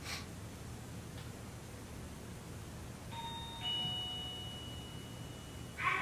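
Wireless motion/door-sensor chime playing a two-note ding-dong, the lower second note about half a second after the first, ringing for about two seconds. A short click comes right at the start, and a burst of noise begins near the end.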